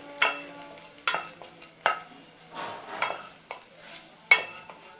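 A spatula stirring and scraping a tomato, ginger and turmeric masala in a pan, in repeated strokes a little under a second apart, over a light frying sizzle.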